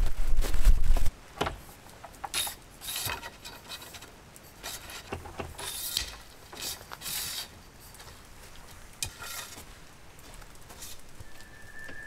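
A vehicle roll-out awning being set up: a loud low rumble for about the first second, then scattered rustles of the awning fabric and light metallic clicks and clinks from its aluminium legs being extended and set.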